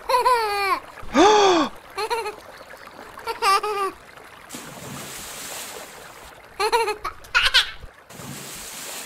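High-pitched squeals and shouts with swooping pitch, several short ones in a row, from children riding a rubber ring over waves. About halfway through, a hissing rush of splashing water lasts some two seconds, and then two more squeals follow.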